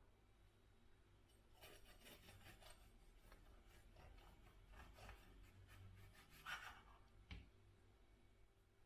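Faint, irregular scraping and rubbing strokes, with one sharper click near the end.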